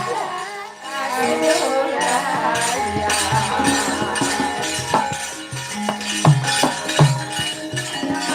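Javanese gamelan music for a wayang kulit performance: held, ringing metallophone tones, with low drum strokes and sharp metallic rattling clashes.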